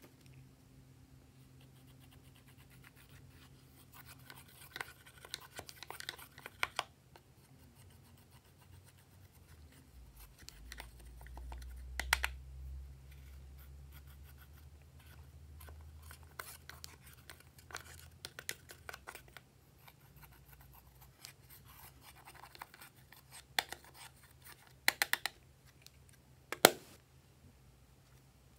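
A tool scratching and scraping pressed eyeshadow out of a plastic palette, in several short bouts of scratchy clicks and taps, the sharpest click near the end.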